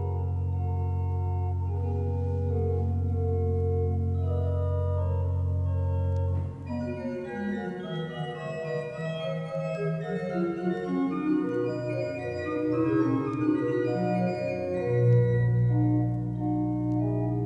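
Organ music: a full chord over a deep bass held for about six seconds, then a moving melody over changing chords, with a new low bass note coming in near the end.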